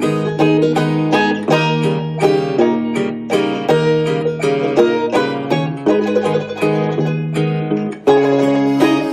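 Background music of quickly picked plucked strings, note after note in a steady run, with a brief break about eight seconds in before it carries on.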